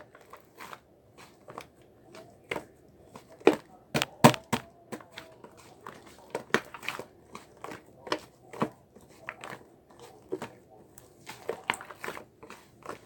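Slime being squeezed, poked and pulled by hand, giving irregular sticky pops and clicks, a few of them sharp and loud.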